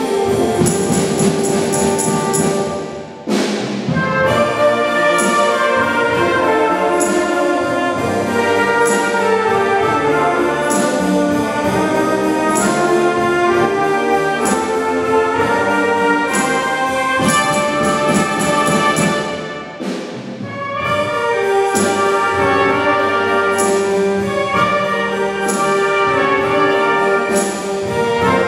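Concert wind band of clarinets, saxophones, brass and drum kit playing a blues-style piece, with cymbal strokes marking a steady beat. The band drops out briefly about three seconds in and again around twenty seconds, then comes back in.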